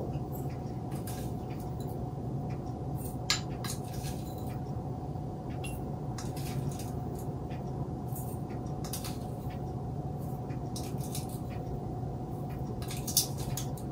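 A plastic spoon scraping and tapping a small bowl while a dry spice mix of seeds, salt and sugar is spooned into small glass canning jars: scattered light clicks and taps. A steady low hum runs underneath.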